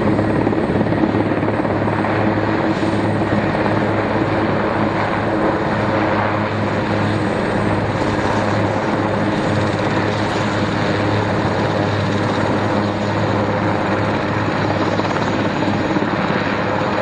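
Denel Rooivalk attack helicopter hovering low, its rotor and twin turboshaft engines running steadily: a loud, even noise over a deep hum.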